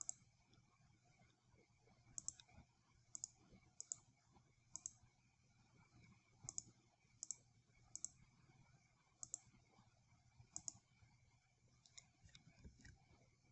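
Faint computer mouse button clicks: about fifteen short, sharp clicks at uneven intervals, several in quick pairs, over a low steady hum.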